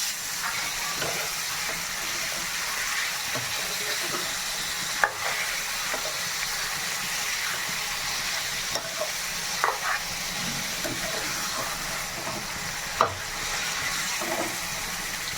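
Chicken pieces sizzling in hot oil with fried onions, stirred in the pan, with a few sharp knocks of the spoon against the pan.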